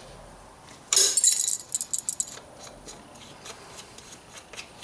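Wrench clinking against the steel chain-adjuster nut and bolt as the nut is backed off: a sharp metallic clink about a second in, a quick run of clicks, then scattered light ticks.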